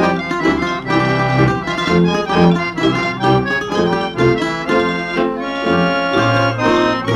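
Instrumental break in a folk song: an accordion plays the melody in full chords over bass notes that change on a steady beat.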